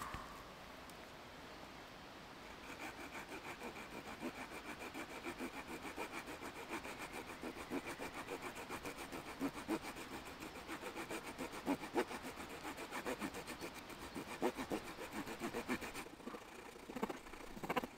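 Small folding wood-saw blade of a Swiss Army knife sawing into a thin forked branch, cutting a dovetail groove into the shaft. It runs in quick, even back-and-forth strokes, starting a couple of seconds in and stopping a couple of seconds before the end, followed by a few light knocks.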